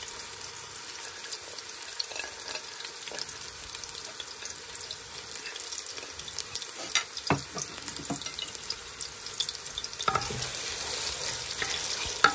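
Sliced onions sizzling and crackling in hot oil in a metal pot, with a few sharp knocks partway through. Near the end a wooden spoon stirs them and the sound grows louder and busier.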